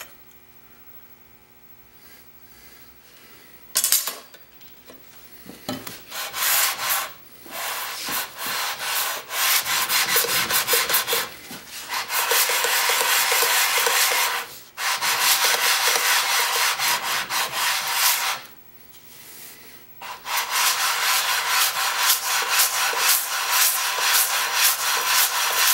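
Cast-iron sole of an old Record trying plane being rubbed back and forth on wet/dry abrasive paper, a rough, rapid scraping stroke after stroke as the worn sole is lapped flat. A single knock about four seconds in comes before the strokes start, and the rubbing stops briefly twice.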